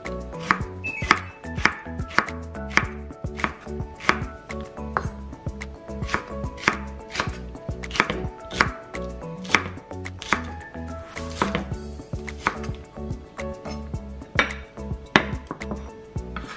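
Chef's knife slicing green onion into rings on a bamboo cutting board: sharp knife strikes on the wood, one or two a second, with a short pause a little after the middle, over soft background music.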